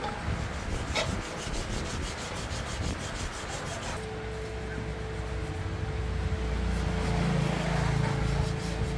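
Abrasive rubbing strokes, as in hand sanding or filing, with a steady hum joining about four seconds in.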